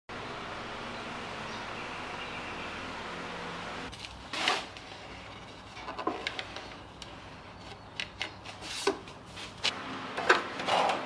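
Steady hiss for the first few seconds, then a string of scattered knocks, taps and short scraping sounds of objects being handled.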